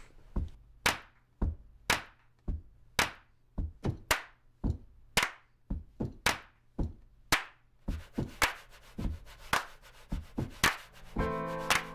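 Rhythmic hand claps and slaps in a steady beat, with a strong hit about once a second and lighter ones between, growing busier in the second half. Plucked ukulele chords come in near the end.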